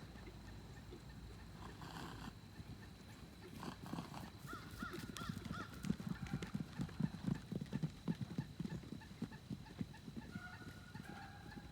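Horses' hoofbeats as they play, a run of dull thuds that is heaviest in the middle stretch.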